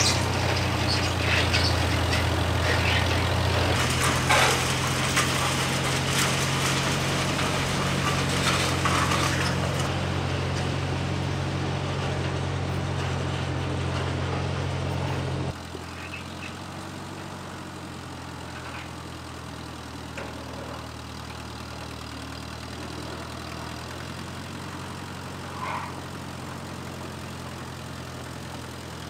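Allis-Chalmers D17 tractor's four-cylinder engine running steadily while carrying a large metal carport on its forks, with rattles and knocks over it in the first half. About halfway through, the engine sound drops sharply and becomes quieter and more distant.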